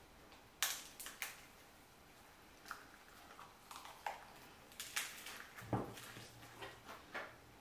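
Close-miked eating sounds: a bite into a lettuce wrap of fire noodles, with short sharp crunches of crisp lettuce and wet, clicky chewing at irregular intervals. A brief low hum comes about six seconds in.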